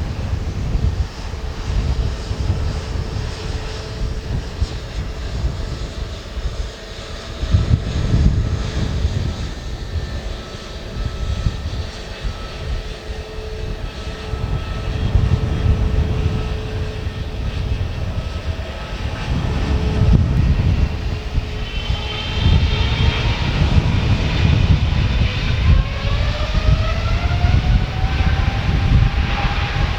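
Boeing 777-300ER's GE90-115B turbofan engines running with a steady low rumble and hum, then from about two-thirds of the way through a rising whine as the engines spool up toward takeoff thrust.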